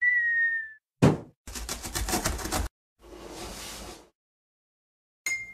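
Cartoon sound effects for an animated intro: a short whistle-like tone dipping slightly in pitch, a quick falling swoosh, about a second of rapid rattling, a softer whoosh, and a bright bell-like ding near the end that rings on briefly.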